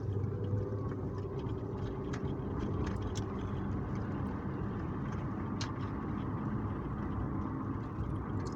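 Car cabin noise while driving: a steady low rumble of engine and road, with a few faint ticks.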